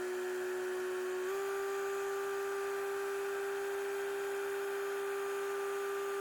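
Truck's low-air-pressure warning buzzer sounding as one steady electronic tone, which steps up slightly in pitch about a second in. It signals that the air system has not yet built up enough pressure.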